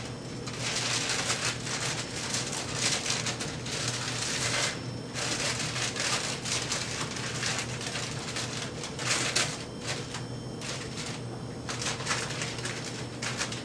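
Wax paper being handled and wrapped, crinkling in an uneven run of small crackles, with a brief lull about five seconds in.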